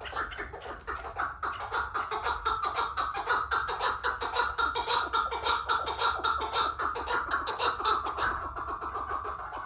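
Chukar partridge calling a long, rapid series of clucking chuk notes, several a second, growing louder over the first few seconds and easing off near the end.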